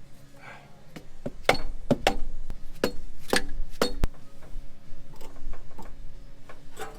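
Mallet blows on the cast-iron cylinder head of a Ford 4.9 (300) straight-six: a string of sharp strikes with a short metallic ring, heaviest in the middle, followed by lighter knocks. The blows are struck to break the stuck head gasket seal loose.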